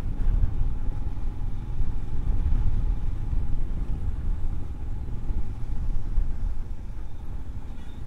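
Road and wind noise of a moving vehicle under way, a dense low rumble with a faint steady hum, easing a little toward the end.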